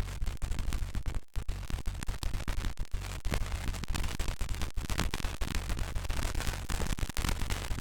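Heavily digitally distorted, bitcrushed sound effect: a harsh wall of static-like noise with dense crackling clicks and a coarse, blocky low rumble, with a few brief dropouts.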